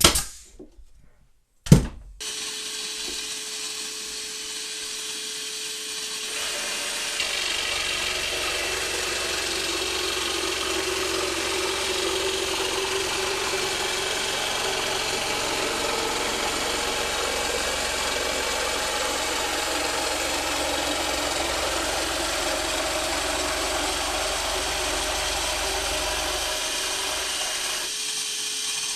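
A vacuum hooked to the dust collection port of a FLEX barrel-grip jigsaw starts about two seconds in with a steady whine. From about six seconds the jigsaw runs cutting wood, louder with a low rumble, until near the end, leaving the vacuum running on its own.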